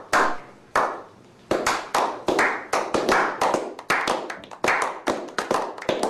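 Hand claps: a run of sharp claps, a few spaced out at first, then quicker at about three a second.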